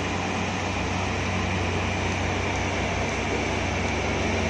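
Diesel engine of a Hino box truck running steadily with a low hum as the truck comes round a hairpin bend, growing a little louder near the end as it approaches.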